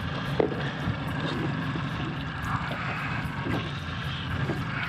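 Steady low drone and wind on a small boat, with a sharp knock about half a second in and a few softer taps from rigging a live squid on a hook on the plastic bait board.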